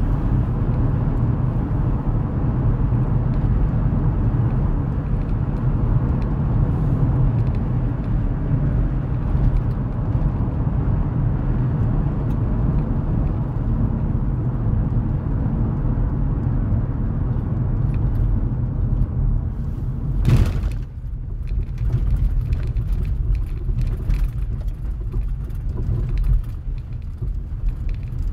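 Steady low road and engine rumble heard from inside a vehicle's cabin while driving. About twenty seconds in there is a short burst of noise, and after it the rumble carries scattered small ticks as the tyres run on a dirt road.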